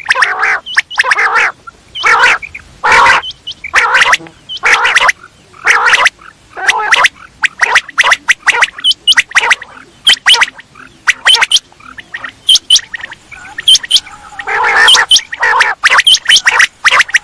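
Quail calling: an irregular string of short raspy calls, each under half a second, mixed with quick sharp high chirps, several sounds every second with few gaps.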